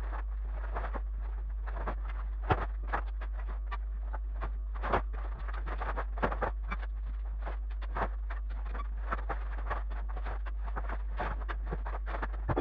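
Rapid, irregular knocks and clatter, several a second, over a steady low hum, as from renovation work with hand tools and materials, sped up.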